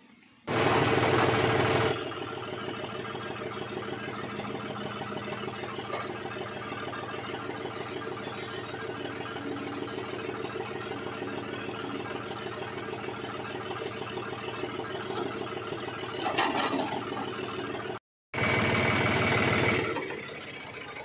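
Diesel engines of a tractor and a backhoe loader running steadily while the backhoe digs soil and loads it into a tractor trolley. It is louder for a couple of seconds near the start and again near the end, with a brief cut-out just before the last loud stretch.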